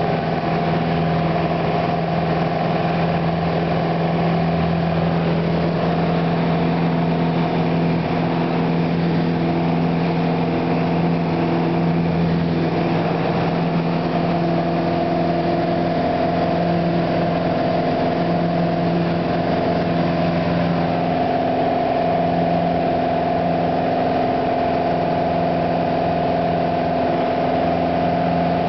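Piper PA-28 Warrior's four-cylinder engine and propeller at takeoff power, heard inside the cabin: a loud, steady drone through the takeoff roll, liftoff and climb-out, its pitch shifting slightly about halfway through.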